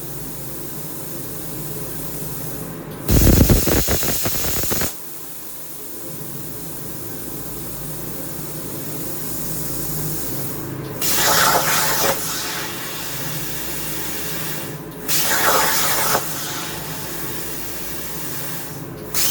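PrimeWeld plasma cutter torch misfiring: a steady air hiss over a machine hum, broken by a loud two-second blast about three seconds in. Three shorter, hissier bursts follow, the last right at the end.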